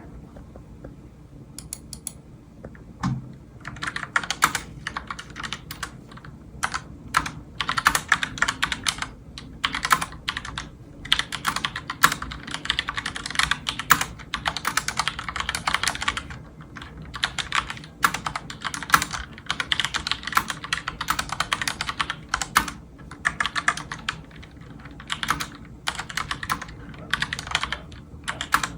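Typing on a Logitech keyboard: rapid key clicks in runs of a few seconds with short pauses, starting a few seconds in after a few scattered keystrokes.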